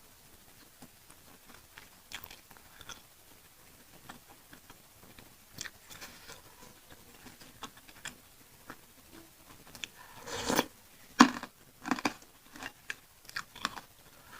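Close-miked chewing of chili-sauced meatballs: soft, scattered wet mouth clicks, then a run of louder bites and chews in the last few seconds.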